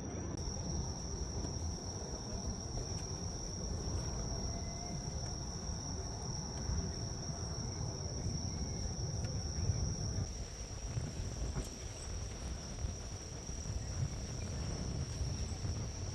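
Insects, such as crickets, keep up a steady high-pitched trill over a low outdoor rumble.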